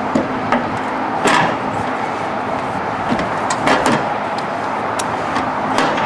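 Sheet-metal exhaust fan parts and hinge-kit hardware knocking and clanking as they are handled and set down, a few sharp knocks over a steady background rumble.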